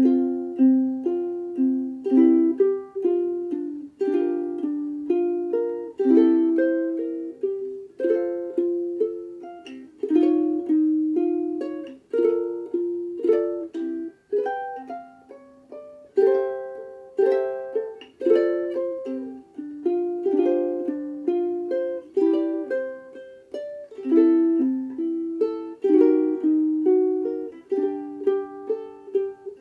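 Sumi UK-GT3M soprano ukulele, a replica of the 1920s Gibson Style Uke-3 with a Honduras mahogany body, played solo: a plucked melody over chords, each note ringing and fading. The playing starts suddenly right at the beginning.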